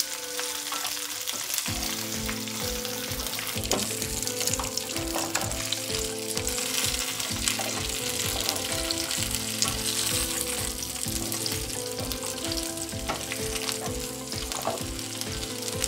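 Whole red chillies sizzling steadily in hot oil in a nonstick frying pan as a spatula turns them. They are being fried until their colour lightens and any extra moisture cooks off. Background music plays underneath.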